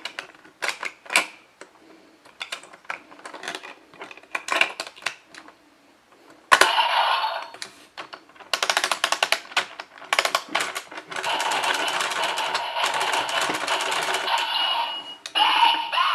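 DX Geartlinger toy morpher: scattered plastic clicks as it is handled and its gear set, then from about six and a half seconds in a loud burst of the toy's electronic sound effects and announcer calls through its small speaker, with runs of rapid clicking.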